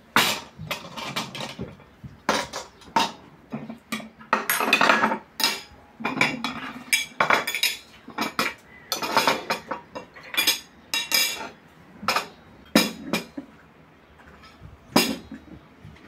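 Plates, tea glasses on saucers and forks being set down on a wooden table: repeated knocks, clatters and clinks of tableware.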